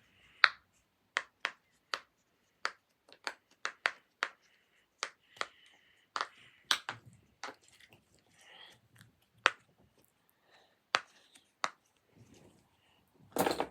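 Heart-shaped silicone pop-it fidget toy being pressed, its bubbles popping in a string of sharp, irregular clicks, with a louder pop near the end.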